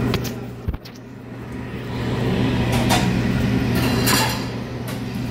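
A Henny Penny fryer drain valve actuator being pushed onto its valve by hand, with a sharp click near the start and then several short scrapes and rubs of plastic on metal. A steady low hum runs underneath.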